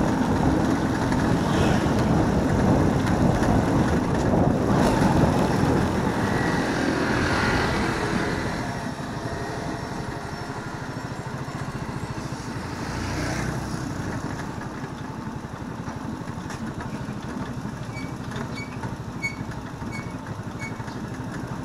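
Street traffic: motor vehicles passing, louder for the first eight seconds or so, then a quieter steady hum. Near the end there is a quick row of short high chirps.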